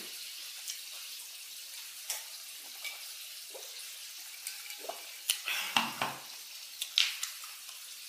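Steady faint background hiss with scattered soft clicks and tissue rustles. About six seconds in there is a short, low throaty sound.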